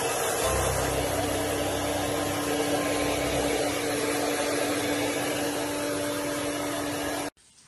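Electric appliance motor and rushing air running steadily with a constant hum, cutting off suddenly near the end.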